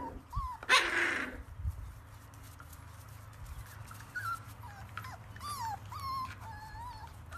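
Puppies whimpering in short, high, squeaky whines, with one louder, harsher cry about a second in.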